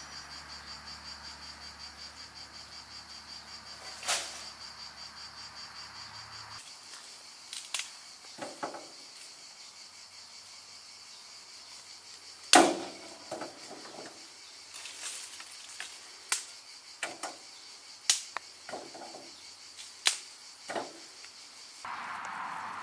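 Dry firewood sticks cracking and knocking as they are broken and laid into a steel mangal to build a fire: single sharp snaps and clacks every few seconds, the loudest about halfway through. Crickets chirr steadily behind.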